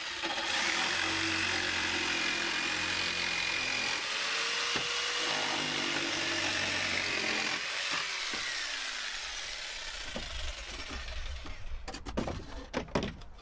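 Corded jigsaw running steadily as it cuts through pallet boards, its motor winding down about eight seconds in. Near the end there are a few wooden knocks and clatter as the cut-out boards are pulled loose.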